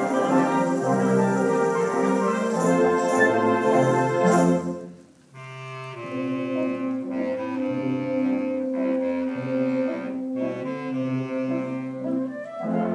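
A wind band playing, with low brass notes under clarinets and other woodwinds. The music breaks off for a moment about five seconds in, then resumes.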